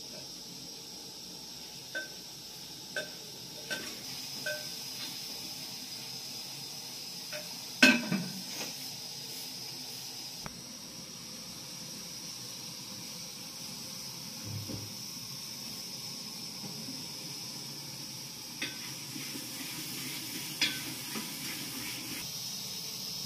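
A small gas burner hisses steadily under an aluminium pressure cooker. Scattered light metal clinks of the pot, its lid and a spoon cut through it, with one louder clank about eight seconds in.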